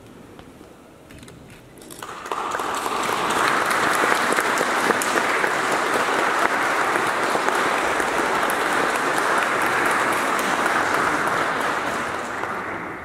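Audience applause, starting about two seconds in, holding steady and dying away near the end.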